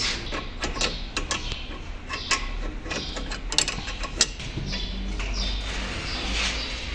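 Workshop clatter: scattered clicks and knocks of metal tools and parts being handled, over a steady low hum.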